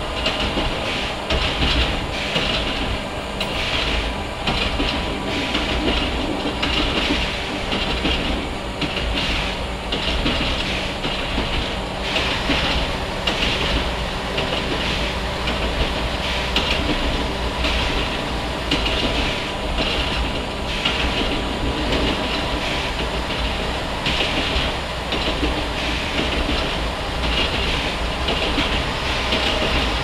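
NOHAB 100-series diesel railcar running along the line: a steady engine and rolling noise, with repeated clicks of the wheels over rail joints.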